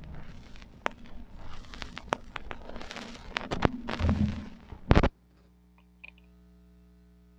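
Irregular sharp clicks and crackles over a noisy background, with a low thump about four seconds in. Just after five seconds the sound cuts off suddenly, leaving only a faint, steady electrical hum.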